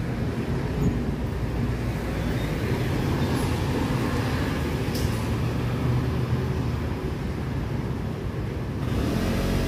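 Street traffic: a steady low engine rumble with motor scooters passing on the road.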